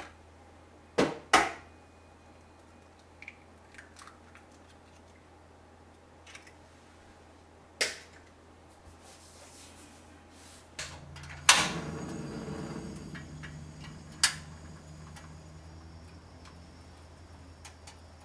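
An egg tapped twice against the rim of a stainless steel pot to crack it, followed by a few small clicks. Later a sharp click as a cassette gas stove is lit, then the steady hiss of the burner, which settles down and runs on with another click or two.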